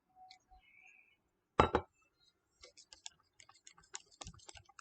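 Small kitchenware being handled: one sharp knock about a second and a half in, then a quick run of light clicks and clinks against a container.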